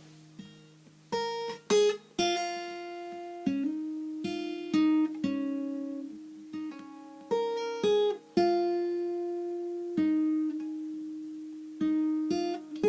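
Acoustic guitar played in a slow melody, one plucked note at a time, each note ringing and fading before the next.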